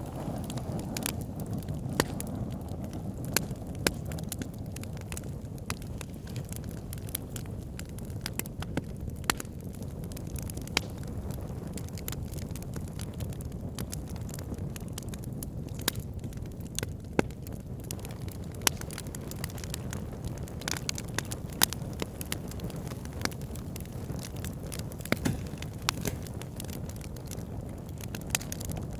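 Wood fire burning in a fireplace: a steady low roar of flames with frequent sharp, irregular crackles and pops of the burning logs.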